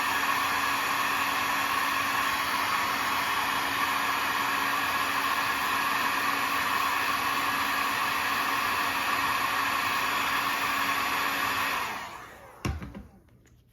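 Electric heat gun blowing steadily while shrinking the tubing on crimped heat-shrink wire connectors; it is switched off about 12 seconds in and runs down, followed by a single thump.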